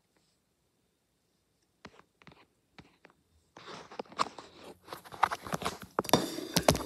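Quiet at first with a few small clicks, then from about three and a half seconds in a dense run of rustling, scraping and knocks from a phone being handled and moved around close to its microphone.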